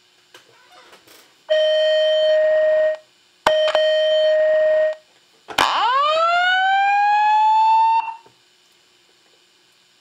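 A pair of System Sensor SPSR fire alarm speaker strobes playing the tone part of a Simplex voice evacuation message. Two steady tones of about a second and a half each come first, then a rising whoop that sweeps up over about two and a half seconds and cuts off: the slow-whoop evacuation signal.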